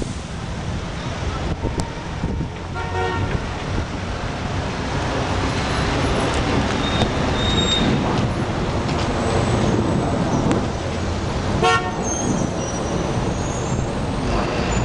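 Busy street traffic with two short vehicle horn toots, one about three seconds in and another about twelve seconds in.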